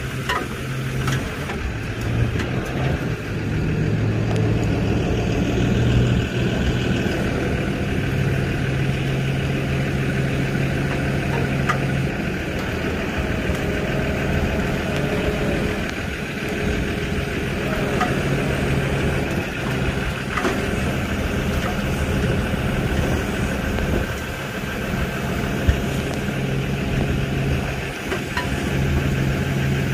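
Flatbed tow truck's engine running steadily at a constant low pitch while its winch draws a car up onto the tilted bed, with a few light clicks.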